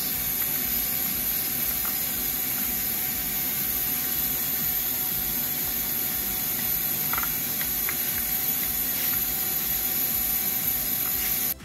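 Vacuum cleaner running steadily, its hose sucking out the inside of a car's air filter housing: a steady rushing noise with a high whine, cut off abruptly near the end.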